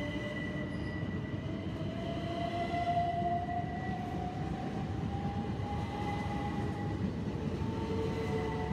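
Southeastern electric multiple unit pulling out and gathering speed, its traction motors giving a slowly rising whine over a steady low rumble, with a steady high tone above.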